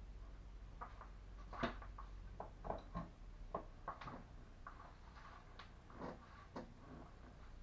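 Scattered light clicks and taps at uneven intervals over a low room hum, the loudest about one and a half seconds in, with more just before and after four seconds and around six seconds.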